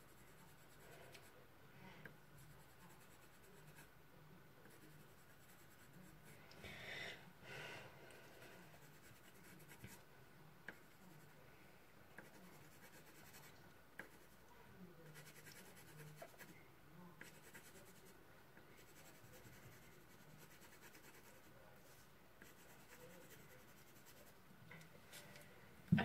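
Faint scratching of a pen drawing on paper, with a louder scratchy stretch about seven seconds in.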